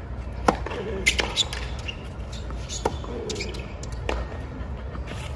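Tennis ball knocking sharply about four times, bouncing on the hard court and meeting the racquet, over a low crowd murmur.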